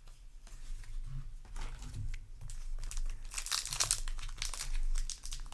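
Foil trading-card booster pack wrapper crinkling as it is handled and torn open, loudest about three and a half seconds in.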